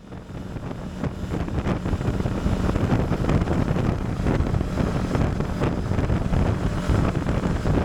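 Heavy wind buffeting on the microphone with a steady low engine drone underneath, starting just after a sudden cut.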